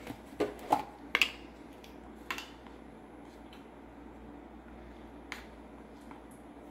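Sharp taps of a plastic measuring spoon on a stainless steel mixing bowl as baking powder is added to flour: several quick taps in the first second or so, one more about two seconds in and a faint one near the end, with low room noise between.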